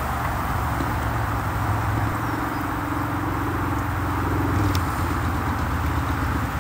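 Steady rush of busy motorway traffic, with a low engine drone underneath.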